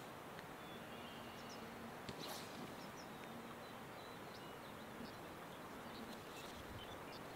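Faint outdoor ambience: a steady hiss of background noise with scattered short, high chirps of small birds and a faint low hum that comes and goes.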